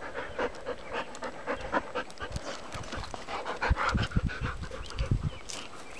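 Dog panting rapidly close to the microphone, about three to four breaths a second, with a few low bumps about two-thirds of the way through.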